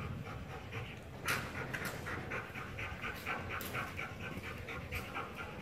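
Belgian Malinois panting rapidly and evenly, about four breaths a second.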